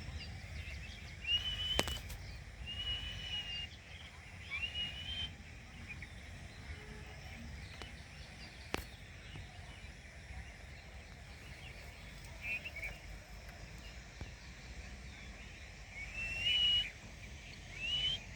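A parrot giving short whistled calls, each rising and then held briefly, about six of them in clusters near the start and near the end, with a low rumble of background noise and two sharp clicks.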